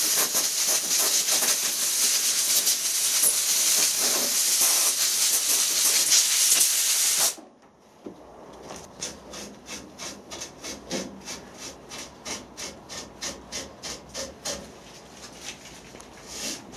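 Compressed-air blow gun hissing steadily as it blows packed debris out of a stepper motor's pinion gear teeth; the hiss stops abruptly about seven seconds in. A quieter run of short, even rubbing strokes, about three a second, follows.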